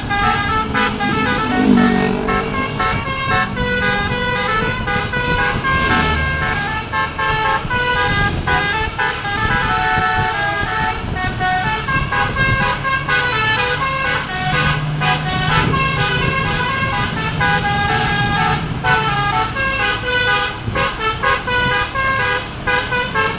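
Bus basuri (telolet) musical horn playing a fast tune, its notes stepping up and down without a break.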